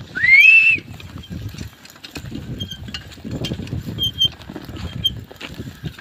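Cattle-drawn wooden plough dragging through dry, cloddy soil: irregular crunching and scraping, with the footsteps of the team and the ploughman. It opens with a loud short whistle that rises in pitch, the loudest sound here.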